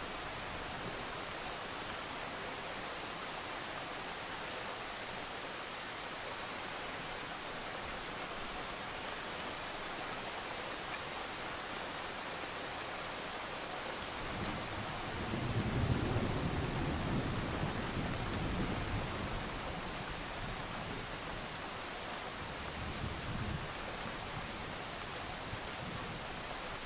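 Steady hiss of heavy rain, with a low rolling thunder rumble that swells about halfway through, peaks and fades away over several seconds; a weaker rumble follows near the end.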